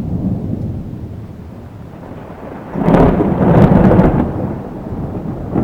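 Thunder: a low rumble that swells about three seconds in into a loud crackling peal, then rolls on and fades.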